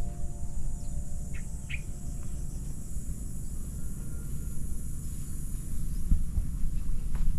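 Outdoor ambience: a steady low wind rumble on the microphone under a steady high drone of insects, with two or three short bird chirps about a second and a half in.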